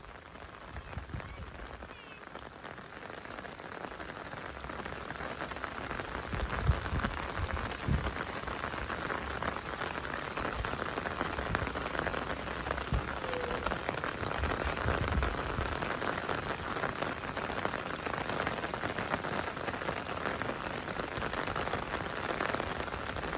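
Heavy rain falling steadily, building up over the first several seconds and then holding, with a few short low thumps.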